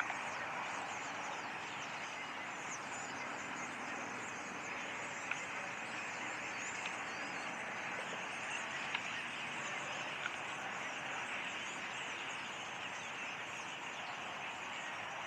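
Massed calling of a large flock of black birds: many faint, high chirps scattered over a steady hiss.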